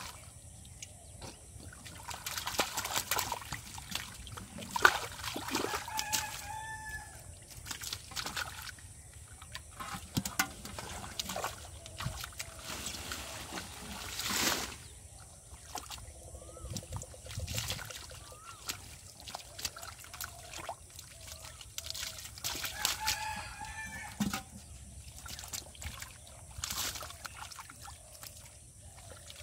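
Muddy shallow water splashing and sloshing as hands grab catfish and tear up water hyacinth, with sharp splashes now and then. A rooster crows twice in the background.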